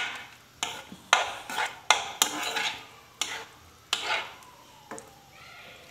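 Metal spatula scraping and knocking against a non-stick frying pan as diced chicken is stirred while it fries. The sharp strokes come about every half second to a second and stop near the end.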